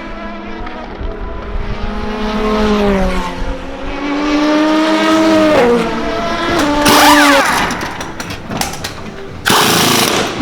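Endurance racing cars on track: engine notes climbing under acceleration and dropping at gear changes, with more than one car heard. A loud rushing burst near the end.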